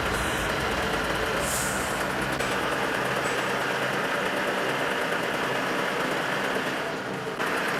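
Heavy truck engine running steadily, with a short hiss of air about a second and a half in.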